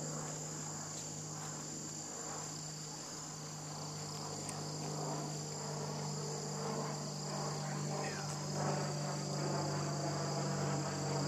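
Steady, high-pitched chorus of insects trilling, with a low steady hum beneath it.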